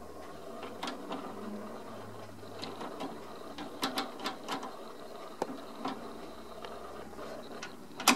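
Amount-setting levers of an antique National cash register being slid into place by hand: a series of separate metallic clicks at uneven intervals as each lever notches into position, with a sharper click near the end.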